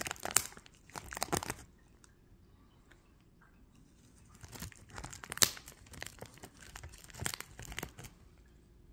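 A cat chewing and biting on a crinkly foil-lined (Mylar) pretzel bag, making clusters of crackling and crinkling. The crinkling stops for about two and a half seconds, then starts again.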